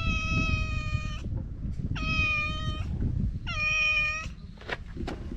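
A talkative stray cat meowing three times, in long calls that hold a steady pitch, about a second apart. A low rumble runs underneath, and a couple of short ticks come near the end.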